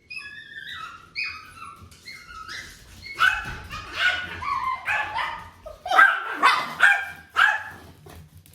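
A dog whining in a run of high, wavering cries that grow louder and lower from about three seconds in.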